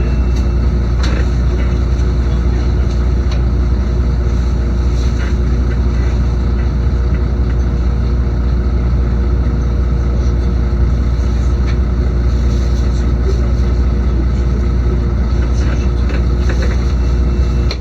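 Cabin noise inside a LiAZ-6213.22 articulated city bus: a steady low engine and running rumble with a faint steady whine above it.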